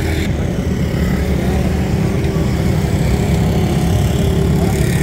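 Road traffic, with a motor vehicle's engine running steadily close by and growing slightly louder.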